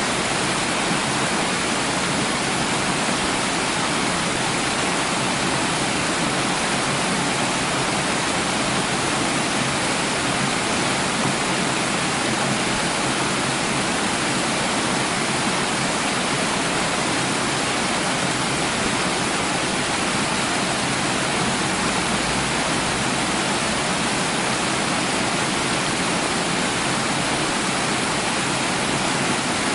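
Running water, a steady rush without a break.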